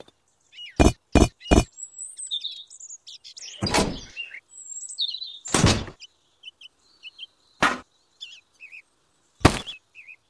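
Small toy pieces knocking as they are set down onto a miniature tractor trailer: three quick knocks near the start, then single knocks about every two seconds. Birds chirp softly between the knocks.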